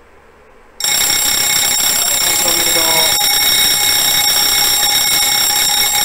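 Electric fire-alarm bell of an automatic fire alarm system starts ringing suddenly about a second in and keeps up a loud continuous ring, set off by a fire test at the control receiver.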